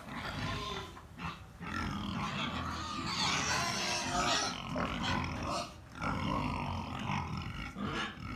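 A group of penned pigs grunting and squealing, loudest around the middle.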